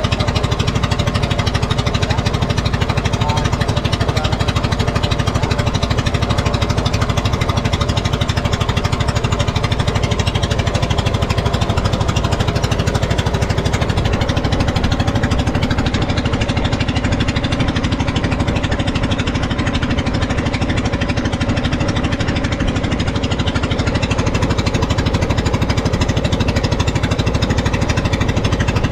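Small wooden outrigger fishing boat's engine running steadily with a rapid, even knock as the boat travels across the water.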